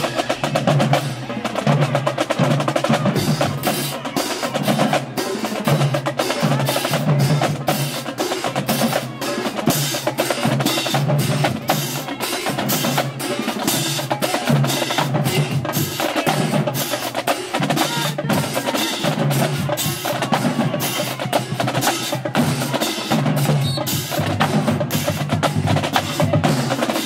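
Marching band drumline playing a fast cadence: rapid snare drum strokes over a repeating pattern of lower drum beats.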